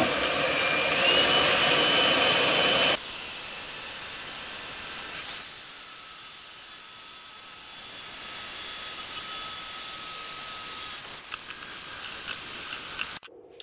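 Electric hand mixer running steadily, its beaters whipping fresh cream in a stainless steel pot: the first stage of churning butter. The motor's whine rises slightly about a second in, the sound drops abruptly in level a few seconds in, falls in pitch near the end, then stops suddenly.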